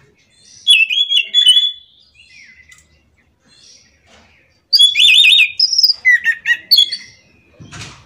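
A caged anis macan (chestnut-backed thrush) singing. It gives two loud bursts of rapid, warbling high phrases, one about a second in and a longer one from about five seconds, with fainter calls between them.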